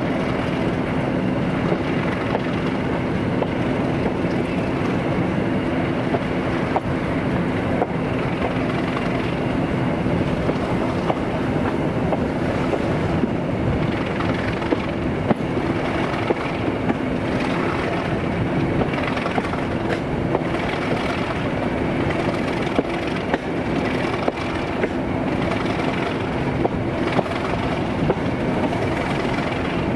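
Diesel-hauled train running at a steady speed: a constant engine drone holding one pitch, with the wheels clicking over rail joints every so often.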